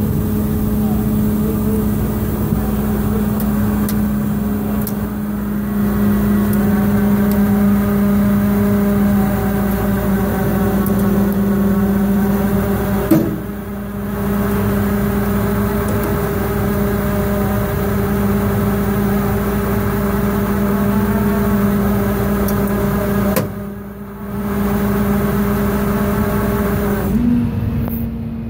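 Flatbed tow truck's engine running at a steady raised speed to drive the hydraulic winch that pulls a car up the bed on its cable, a steady drone. The sound dips briefly twice, about halfway through and a few seconds before the end.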